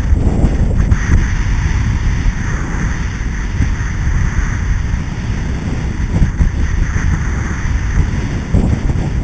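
Wind buffeting the microphone of a skier's head-mounted action camera while skiing downhill: a steady, loud low rumble, with the hiss of skis sliding over groomed snow.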